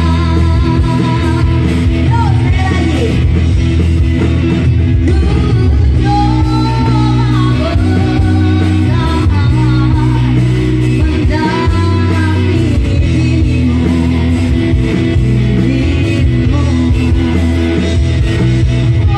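A live rock-pop band playing a cover, with a woman singing over electric guitars, bass and drums through the PA.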